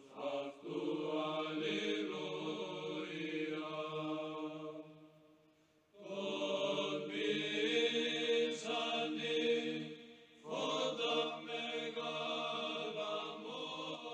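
Background choral chant: low voices singing long held notes in three phrases, with a brief silence about five seconds in and a short dip before the last phrase.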